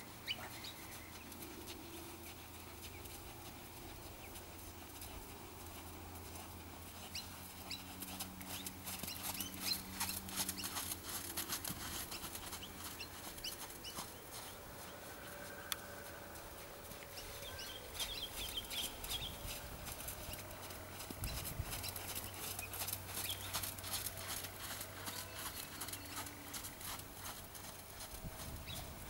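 Hoofbeats of a horse on a sand arena as it circles on a long line. A few short, high chirping calls sound about a third of the way in and again past the middle.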